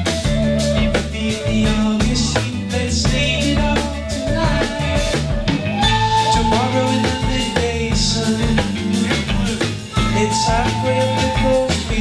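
Live band playing: drum kit keeping a steady beat under a busy bass line, with held melody notes over the top.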